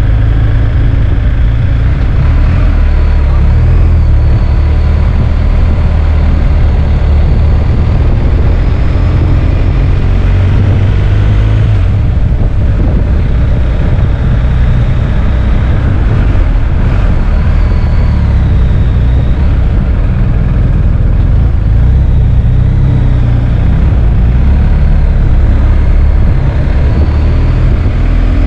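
BMW R1250 GS's flat-twin boxer engine running steadily at low road speed, heard from the riding motorcycle as a dense, steady low rumble.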